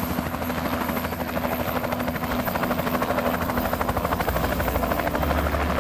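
Cargo helicopter's rotor running with a rapid, rhythmic blade chop, growing gradually louder.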